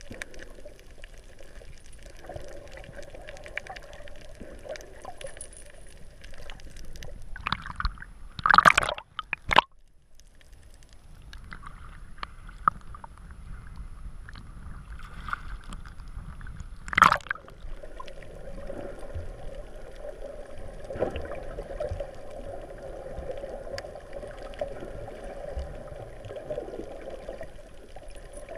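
Underwater audio from a snorkeller's action camera: a steady muffled hum with gurgling water. There are two loud splashes, about nine and seventeen seconds in, as the camera breaks through the water surface and goes back under.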